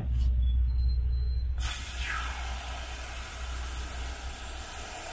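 Aerosol AC cleaner spray hissing steadily through an extension tube into a car's dashboard air vent, starting abruptly about a second and a half in. A low rumble runs under it and is loudest before the spray starts.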